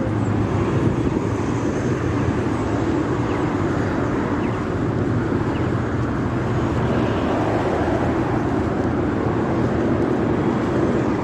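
Steady city street traffic noise: car engines and tyres at an intersection, with a low engine hum.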